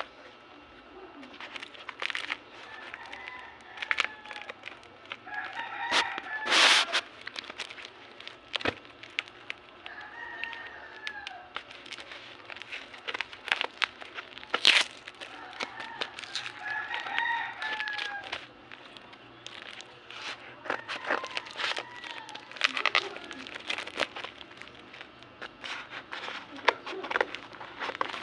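A rooster crowing several times, each crow a drawn-out arching call, over frequent sharp clicks and rustles of handling.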